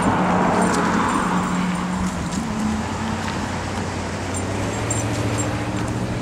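Road traffic: a car going by, loudest about a second in, over a steady low hum that shifts pitch partway through.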